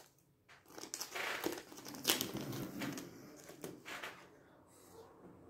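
Thin clear plastic packaging crinkling as it is handled by hand, in irregular rustles that are busiest in the first couple of seconds and taper off near the end.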